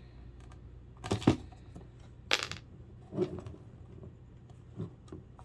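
A few short clinks and knocks of small hard parts as a clock radio is handled and pried at during a teardown, the loudest two about a second in and halfway through.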